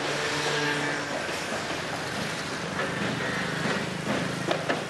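Steady street traffic noise with an engine hum; about four seconds in, a run of drum beats starts up.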